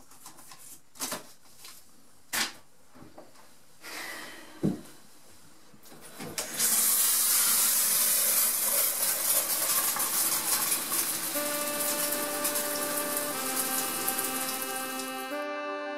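A few light clicks and knocks, then a shower running: a loud, steady hiss of water spray that cuts off suddenly near the end. Held organ-like music chords come in over the spray in the second half.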